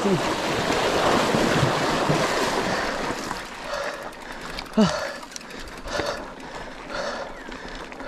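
River water splashing and rushing as a mountain bike is ridden through a shallow river crossing, loudest for the first three seconds or so and then dying down, with a few short knocks in the quieter second half.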